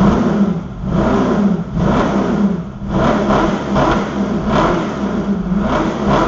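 Kit car engine revved in repeated quick blips through its newly welded exhaust, the note rising and falling about once a second.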